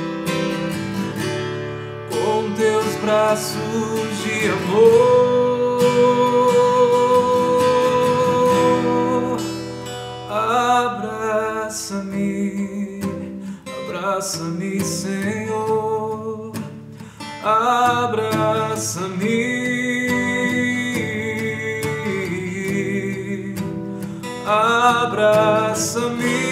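Acoustic guitar strummed, with a man's voice singing long held notes over it.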